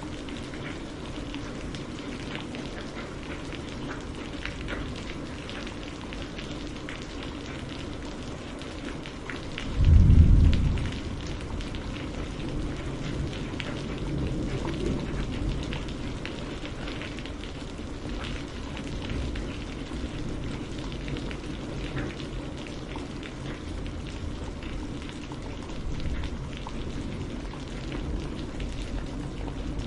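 Steady rain falling, with many individual drops pattering on a surface. About a third of the way in, a brief low rumble lasting around a second stands out as the loudest moment.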